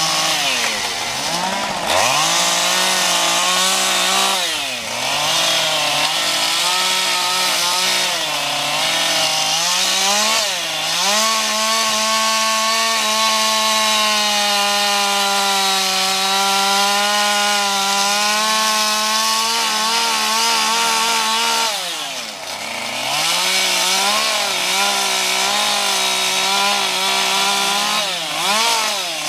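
Two-stroke chainsaw carving wood, running at high revs with a long steady stretch in the middle. The engine pitch dips briefly and recovers several times.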